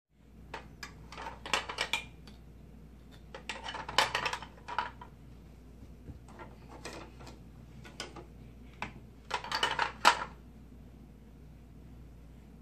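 Small hard plastic toy pieces clicking and clattering as a toddler handles them, in three short bursts with a few single clicks between.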